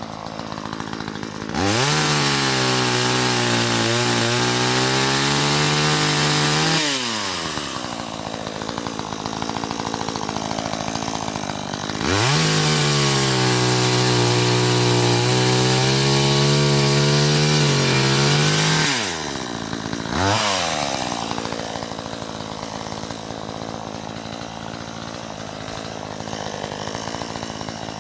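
Two-stroke gas chainsaw idling, then revved to full throttle twice, for about five and about seven seconds, cutting wood with its pitch wavering under load. It gets a short throttle blip soon after and drops back to idle.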